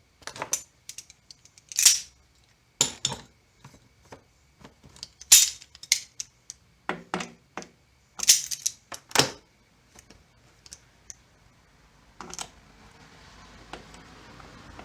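Small metal hardware and hand tools being handled: a run of irregular sharp clinks and clatters through the first ten seconds or so, then a faint steady hiss near the end.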